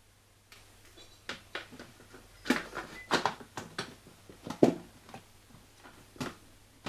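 Irregular clicks and knocks of washing machine door parts being handled and fitted together, with a few sharper knocks among lighter clicks.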